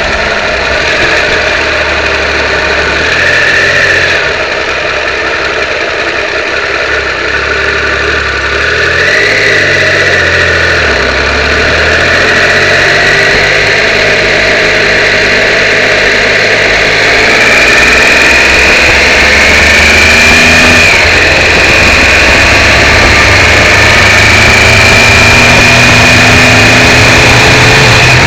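Triumph 955i motorcycle's three-cylinder engine running on the move, its pitch rising and falling with the throttle, over a heavy rushing noise picked up by a cheap camera strapped to the fog light. About halfway through it grows louder and holds a higher, steadier pitch.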